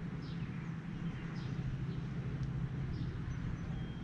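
Birds chirping faintly, short high downward calls about once a second, over a steady low rumble.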